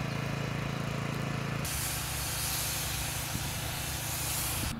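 Steam-cleaning lance hissing steadily as steam is blasted onto the fountain's stonework, with a steady machine hum beneath. About a third of the way in the hum drops away and the hiss turns brighter and harsher.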